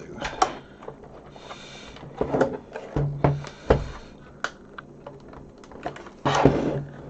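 A screwdriver and hands working on the plastic case of a Sinclair QL while its screws are undone: irregular clicks, knocks and short scrapes, with a longer, louder scrape a little after six seconds in.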